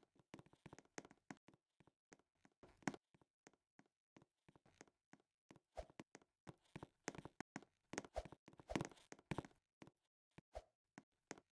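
Irregular light clicks and knocks, several a second, with a few louder thumps about three seconds in and again around nine seconds.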